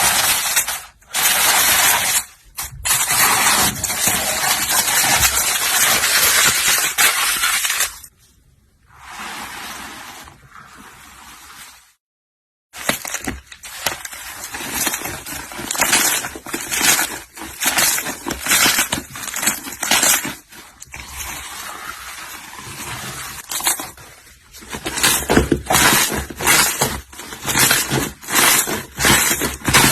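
Repeated sharp pops and cracks, with a dense steady crackle in the first stretch and separate sharp pops later, about two a second in the last few seconds; the sound cuts out briefly about twelve seconds in.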